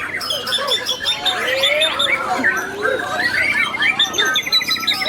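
White-rumped shamas singing, several voices overlapping in a dense mix of clear whistles, pitch glides and fast repeated-note trills, with a rapid trill of evenly spaced notes near the end.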